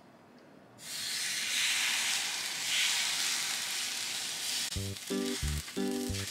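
Takoyaki batter sizzling as it is ladled into the hot oiled wells of a takoyaki pan, starting suddenly about a second in and continuing as a steady hiss. Background music with a plucked rhythm comes in near the end.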